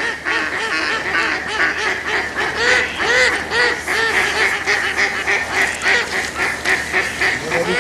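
A flock of waterbirds calling nonstop: many short, overlapping calls, several a second.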